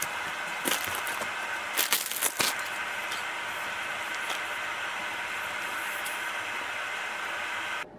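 Soft clicks and rustles of shredded cheese, lettuce and pico de gallo being dropped by hand onto a tortilla on a plate, over a steady background hiss. The clicks fall in the first couple of seconds, and the hiss stops abruptly near the end.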